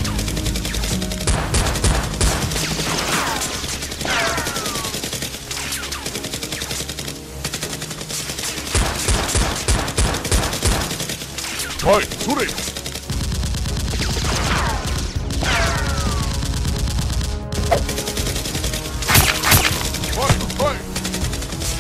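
Bursts of rapid gunfire sound effects, dubbed over a toy-blaster fight, with background music underneath.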